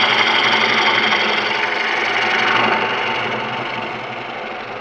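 Fingernail-ground bowl gouge cutting across the face of a bowl spinning on a wood lathe: a steady hiss of wood being cut over the hum of the running lathe. It grows gradually quieter in the second half.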